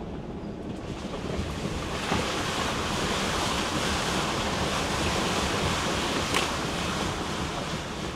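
A Jeep driving through a shallow mud puddle, its tyres splashing and churning through the muddy water. The splashing grows from about two seconds in, with one sharp click about six seconds in.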